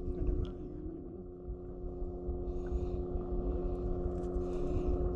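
An engine running steadily at an even speed, a low hum of several unchanging tones.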